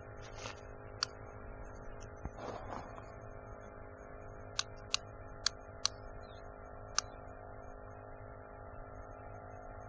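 A steady low hum under about seven sharp clicks and a brief rustle about two and a half seconds in: handling noise from a tape measure and landing net laid along a fish being measured.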